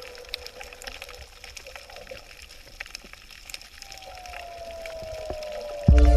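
Ambient background music: sparse droplet-like clicks and a slow falling tone, then a loud chord with deep bass coming in suddenly near the end.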